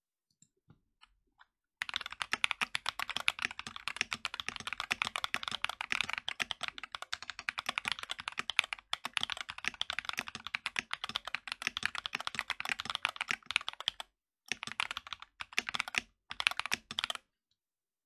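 Fast typing on a mechanical keyboard at about 100 words per minute: a few light clicks, then a dense, steady run of key clacks that breaks off briefly twice near the end and then stops.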